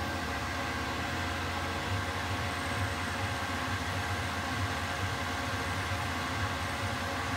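Small benchtop machine tool running steadily: an even motor hum with several held tones and no change in speed.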